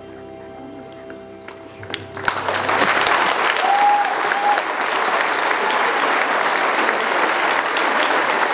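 The last held chord of the children's choir song dying away, then about two seconds in the audience breaks into loud, steady applause, with a short call from someone in the crowd soon after it starts.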